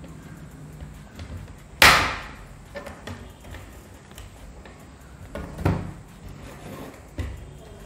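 Plastic snap-fit clips of a portable DVD player's screen housing popping loose as the back cover is pried open with a pointed tool: one loud sharp snap about two seconds in, a smaller snap near six seconds, and a light knock after it.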